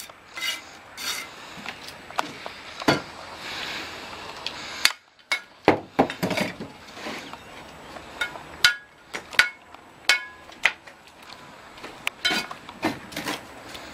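Steel mason's trowel knocking, tapping and scraping on clay bricks and mortar while bricks are laid and trimmed. The knocks are irregular and sharp, and several ring briefly.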